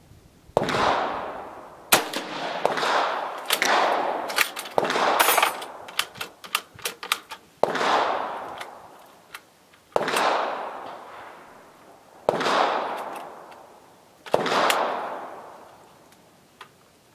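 Shots from a 6.5 mm Carcano M38 bolt-action short rifle firing cast-bullet loads. There is a string of sharp reports, each echoing away over a second or two, with small metallic clicks of the bolt being worked between them.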